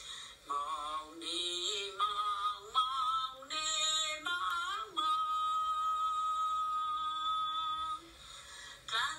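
A single voice singing a slow melody with wavering, sliding notes; one note is held steady for about three seconds from around five seconds in.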